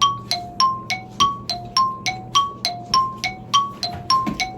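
Background music: a light, bell-like mallet tune of short ringing notes, about three or four a second, bouncing between two main pitches.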